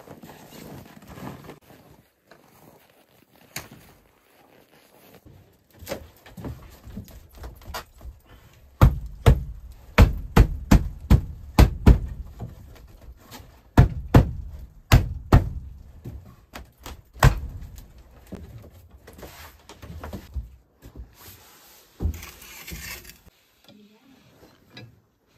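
A run of heavy thuds: a few scattered knocks, then about fifteen hard blows in quick, irregular succession over some eight seconds, and a short scraping rustle near the end.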